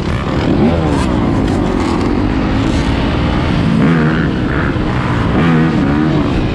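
Dirt bike and quad engines revving and accelerating hard, pitch climbing and dropping through the gears as the group pulls away, over a steady rush of wind on the microphone.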